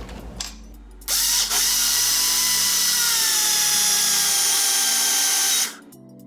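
Small electric kitchen appliance motor running loud and steady for about four and a half seconds, its whine dropping slightly in pitch as it works, then cutting off. Background music plays underneath.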